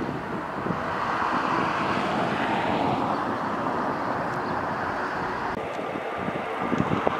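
Twin-engine jet airliner at takeoff thrust, a steady rushing roar as it rolls and climbs away. About five and a half seconds in, the sound cuts to a quieter engine hum with a faint steady whine from a jet on the taxiway, and wind buffets the microphone.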